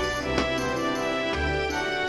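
Background music: a gentle instrumental tune with sustained notes and a changing bass line, with a couple of light percussive ticks near the start.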